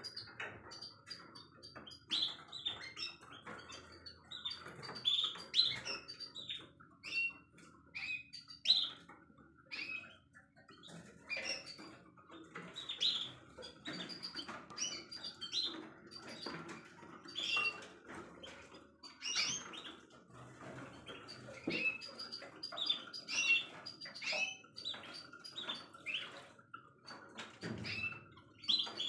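Many canaries in breeding cages chirping and calling, short overlapping chirps throughout, with wing flutters among them.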